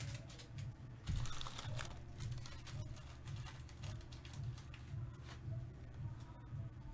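Quiet background music with a low beat about twice a second, under scattered light clicks and rustles.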